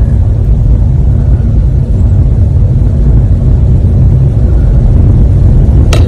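Loud, steady low rumble, with a single sharp tap just before the end.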